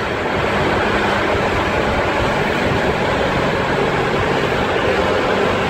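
Steady noise of a vehicle on the move through city streets: wind and road noise with a low engine hum underneath.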